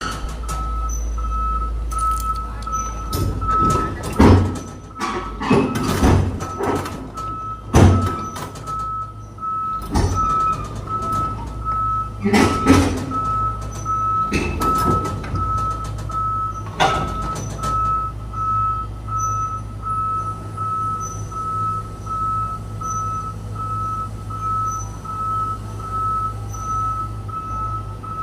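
Heavy machinery engine running steadily while a warning alarm beeps about twice a second. During the first half, loud heavy metal clanks and knocks sound several times, as the excavator's steel tracks climb onto the lowboy trailer.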